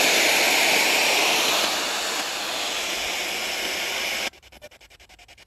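Spirit box radio giving out loud, steady static hiss from the white noise between stations. The hiss cuts off suddenly about four seconds in, leaving faint rapid ticking.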